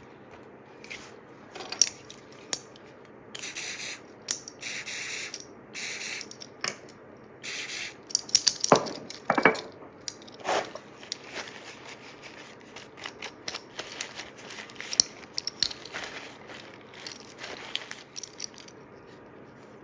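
Hand work on a small metal belt buckle: scattered clicks and scrapes of small parts and tools as nuts go onto a threaded rod, with four short hissing bursts between about three and eight seconds in.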